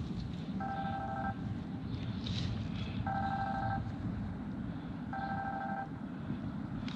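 An electronic two-tone beep, each about two-thirds of a second long, sounding three times at intervals of two to two and a half seconds over a steady low rumble.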